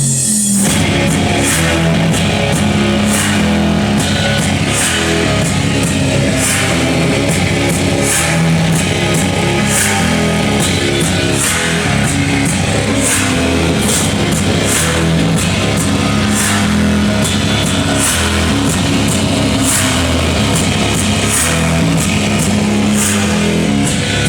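Rock music with electric guitar and drums playing loud through a side-by-side's aftermarket stereo, amplified speakers and subwoofer, with a steady cymbal beat over a heavy bass line.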